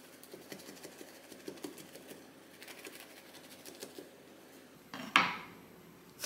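Serrated bread knife sawing through toasted bread on a wooden cutting board: a run of small, dry crunches of the crust for about four and a half seconds. About five seconds in comes a single louder knock as the knife is set down on the board.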